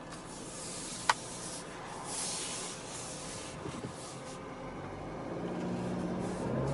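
Rubbing and brushing close to the microphone, with one sharp click about a second in. Near the end the Audi A4's 2.0-litre turbocharged engine comes in and rises in pitch as the car picks up speed.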